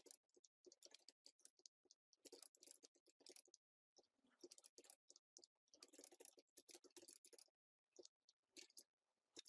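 Faint computer keyboard typing: quick runs of key clicks broken by brief pauses.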